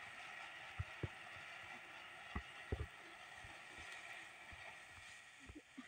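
Hurricane fountain firework spraying sparks: a faint, steady hiss with scattered soft pops.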